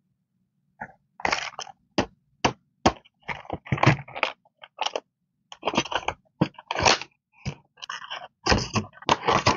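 Clear plastic packaging of washi tape sets being handled, giving an irregular run of sharp clicks, knocks and crinkles that starts about a second in.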